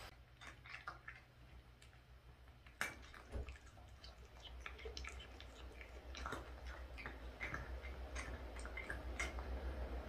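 Cats eating octopus from a plate: faint, irregular wet clicks and smacks of chewing and licking, with one sharper click about three seconds in.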